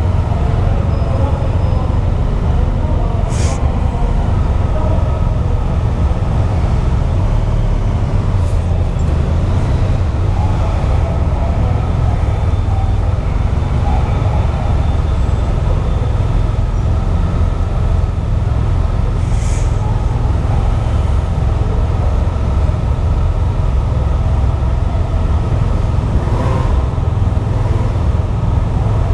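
Steady low engine rumble on a ferry's enclosed vehicle deck, from motorcycles idling and moving at walking pace. A few sharp knocks sound over it, about three seconds in, again past the middle, and near the end.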